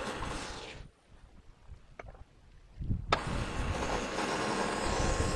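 Norwood Lumberlite ML26 portable bandsaw mill running steadily as its saw head is pushed through an ash log. About a second in the sound drops away almost to silence, with a few faint clicks. It comes back with a sharp click about three seconds in.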